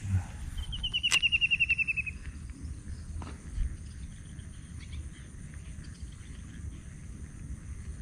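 KastKing Crixus baitcasting reel's spool spinning out as a lure is cast: a rapid, high, pulsing whir starting about a second in and lasting just over a second, with a sharp click near its start. After that only a faint steady background remains.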